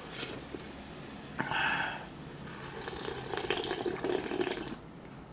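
A person drinking yukgaejang broth straight from the bowl: liquid sipping and swallowing sounds, mostly in a stretch from about halfway through to near the end.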